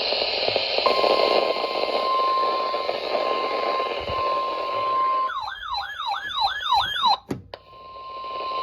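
NOAA Weather Radio alert tone: a steady high beep over radio static, starting about a second in, heralding a severe thunderstorm warning. About five seconds in it gives way to a siren-like warble rising and falling about two to three times a second. The warble ends in a sharp click, and the steady tone then resumes.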